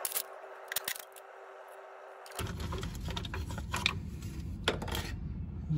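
Scattered light clicks and rattles of tools, bolts and the plastic lower timing-belt cover being handled as the cover is unbolted and removed. A faint steady hum runs through the first couple of seconds.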